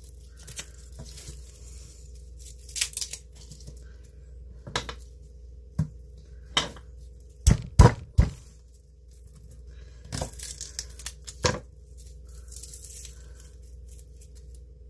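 Dry, papery garlic skins crinkling and tearing as cloves are peeled by hand, with several sharp knocks of a knife on a wooden butcher-block board, loudest in a quick run of three about halfway through and once more a few seconds later.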